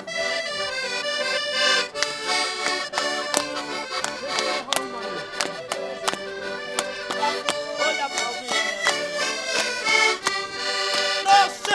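Concertinas (Portuguese diatonic button accordions) playing a lively folk tune between sung verses, the notes changing quickly, with sharp clicks about twice a second.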